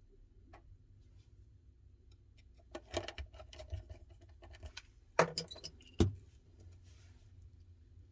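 Small tools and phone parts clicking and clattering as they are handled: a cluster of light taps about three seconds in, then two sharp clicks around five and six seconds in, the loudest.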